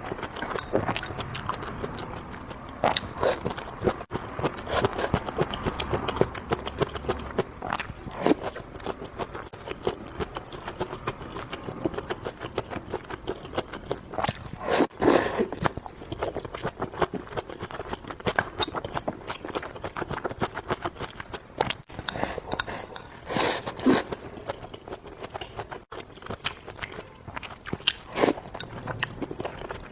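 A person eating close to the microphone: steady chewing with many small wet clicks, and a few louder bites about halfway and again near three quarters through.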